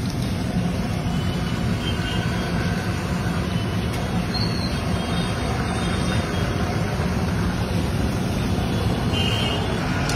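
Raw banana slices frying in a wide kadai of hot oil: a steady, even noise.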